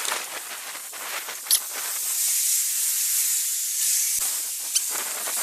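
Outdoor street background: a steady, high, even hiss with a few brief clicks.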